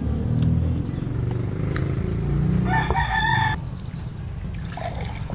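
A rooster crows once, about a second long, around three seconds in, over a low rumble that fades out soon after.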